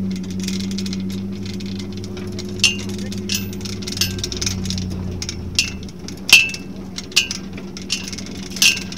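Vehicle engine running steadily while driving along a dirt road, with about eight sharp clanks and rattles, each with a brief ring, from about two and a half seconds in.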